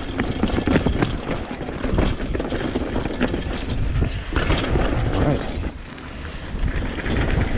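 Downhill mountain bike rattling and clattering over a rough dirt trail, with many short sharp knocks, under wind rumble on the action camera's microphone. The noise eases briefly about six seconds in.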